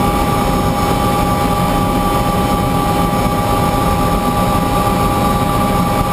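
Bell 206 JetRanger helicopter running on the ground with its rotors turning. Its Allison 250 turbine gives a steady high whine over a dense, even rumble from the engine and rotors.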